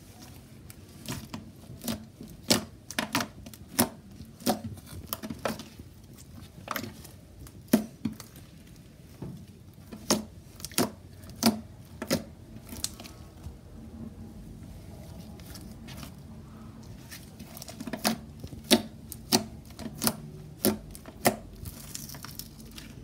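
Purple slime being stretched, folded and pressed by hand, giving off irregular sharp clicks and pops, thinning out for a few seconds midway.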